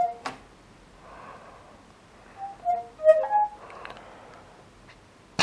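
Windows 10 Cortana's soft chime tones from the laptop's small speakers after a voice question. There is one short tone at the start, then a quick run of five or six short notes at different pitches about two and a half seconds in.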